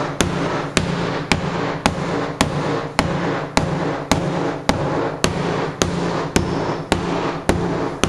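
Rock hammer tapping a cracked ceramic floor tile, about two even blows a second, breaking the tile up and loosening the mastic underneath. A steady hum runs beneath the blows.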